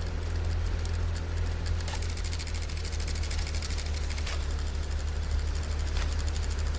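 Electronic glitch-noise sound bed: a steady low hum under a fast buzzing crackle, with a few faint ticks.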